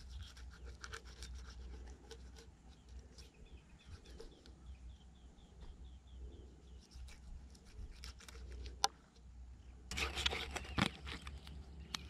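Scattered clicks and scraping, with a dense burst of scraping or rubbing about ten seconds in. A short run of high chirps comes a few seconds in.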